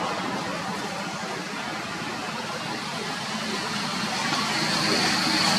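A vehicle engine running steadily, growing a little louder near the end, when a thin, high, steady whine also comes in.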